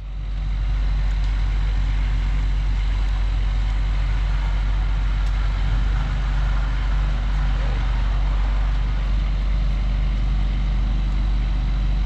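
A heavy truck's diesel engine running steadily at a constant speed, with a deep even rumble.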